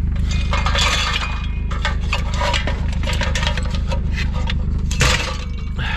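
Pieces of scrap metal clinking, knocking and scraping as they are shifted around in a loaded car, with a sharper knock about five seconds in.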